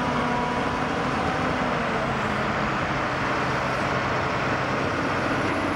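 Caterpillar 966F wheel loader's diesel engine running steadily under load as it lifts and dumps a bucket of earth into a dump truck, a dense even rush of machine noise.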